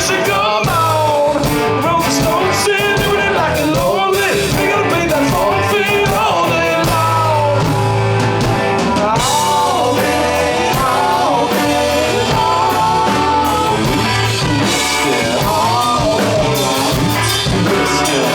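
Rock band playing live at full volume, a melodic lead line bending up and down in pitch over bass and drums.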